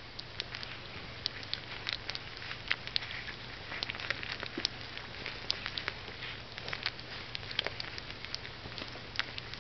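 Basenji puppies suckling at their mother, a dense run of small irregular smacking clicks, several a second.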